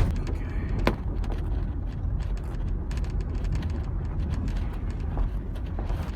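Steady low rumble of an idling vehicle engine, with a sharp knock at the start and another about a second in, and scattered small clicks.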